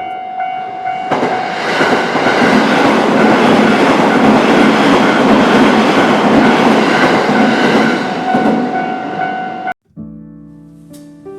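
Train passing over a level crossing, its wheels clattering on the rails, with the crossing alarm ringing as a steady tone over it. The train noise builds over about a second, stays loud for about eight seconds, and then cuts off abruptly.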